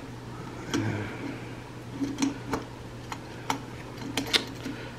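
Scattered small clicks and taps of plastic and metal parts as the carburetor and a clear fuel line are fitted on a chainsaw, irregular and about a dozen in all, over a faint steady hum.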